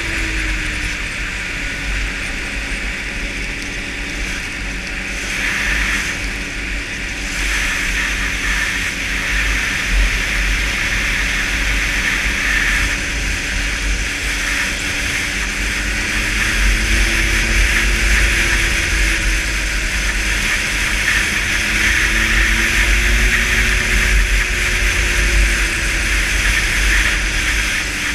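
Snowmobile engine running at trail speed while riding, its pitch rising and easing off gently twice in the second half, over a deep rumble and a steady hiss.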